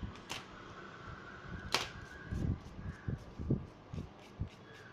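Handling noise of a smartphone frame on a workbench: two sharp clicks, the second and louder one about two seconds in, then a string of soft low knocks and taps as the frame is picked up and wiped.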